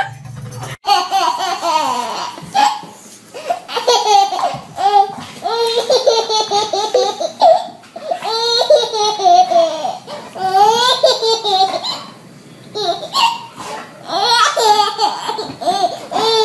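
A baby laughing hard in repeated bouts, each laugh rising and falling in pitch, with short pauses between bouts.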